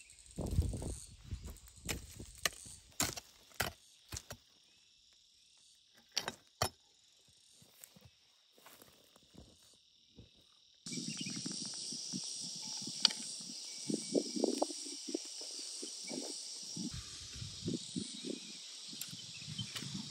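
Steady high-pitched drone of insects such as crickets, with scattered sharp clicks and low thumps and rustles. The drone gets suddenly louder about eleven seconds in.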